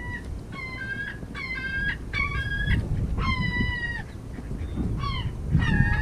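Herring gulls calling: a run of loud, repeated harsh calls, then a few shorter calls that drop in pitch near the end.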